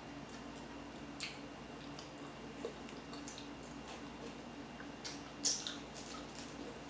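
Chewing and mouth sounds of someone eating chili dogs and curly fries: a few soft scattered clicks, the clearest about a second in and just after five seconds, over a faint steady hum.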